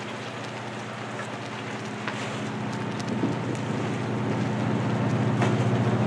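Steady low machinery hum from a moored littoral combat ship, with wind buffeting the microphone. The hum grows louder toward the end.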